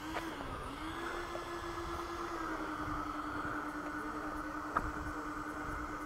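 Twin electric ducted fans of a Free Wing A-10 Warthog RC jet whining steadily at low throttle while it taxis, the pitch stepping up about a second in and settling lower a little before the middle. A single sharp click about two-thirds through.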